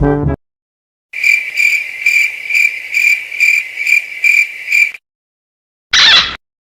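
Cricket chirping sound effect, the meme cue for an awkward silence: about nine high chirps at roughly two a second, stopping abruptly. It follows the cut-off end of a brass music cue, and a short harsh call sounds briefly near the end.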